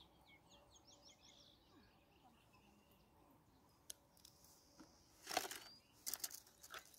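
Quiet outdoor ambience with faint small birds chirping in a quick series during the first second or so. Short rustling noises and a few clicks come about five seconds in and again just after six.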